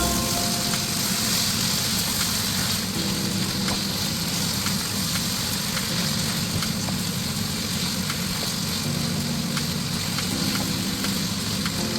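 Chicken curry frying in its masala in the pan: a steady sizzling hiss over a low, even hum.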